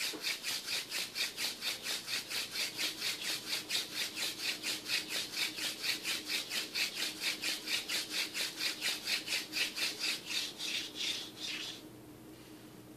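Hand drill friction fire: a thin cattail spindle spun back and forth between the palms, grinding in the socket of a queen palm seed pod fireboard. It makes a rhythmic rasping rub of about four strokes a second that stops about twelve seconds in.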